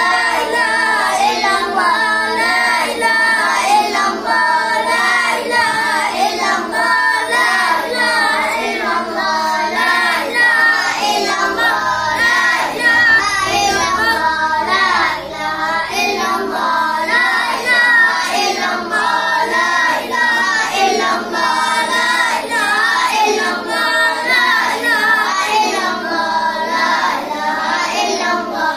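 A group of young boys chanting an Islamic devotional recitation together, loud and without a break.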